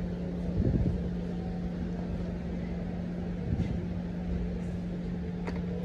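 Supermarket room tone: a steady low hum with one constant droning tone and a faint rumble under it.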